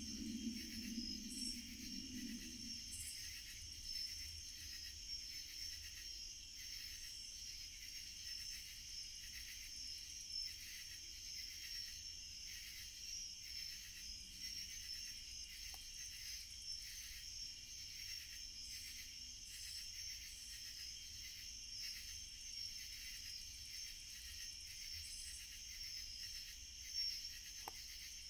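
A chorus of night insects: a steady, pulsing high-pitched trilling. Two faint clicks, one about halfway and one near the end.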